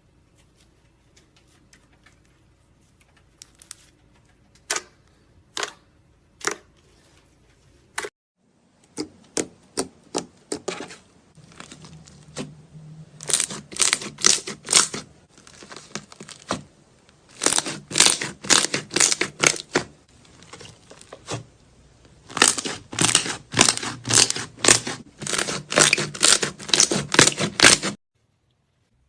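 Slime being played with, making sharp clicky pops: a few single pops at first, then, about eight seconds in, dense crackling runs of clicks and pops in bursts, stopping abruptly near the end.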